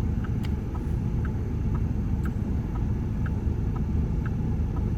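Steady low rumble of a car's engine and road noise heard from inside the cabin, with a turn-signal flasher ticking lightly about twice a second.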